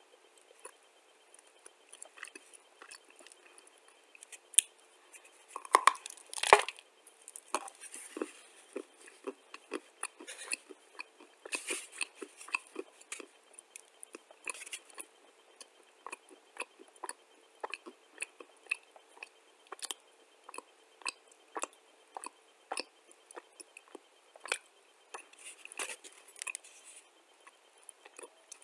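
Close-up chewing and crunching of pale clay: a steady run of small crisp crunches and mouth clicks, with a louder cluster of crunches about six seconds in.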